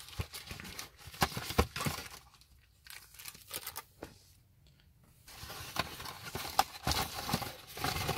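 Plastic wrapping crinkling and cardboard packaging scraping and clicking as parts are pulled out of a speaker box, busiest at the start and near the end with a quieter stretch in the middle.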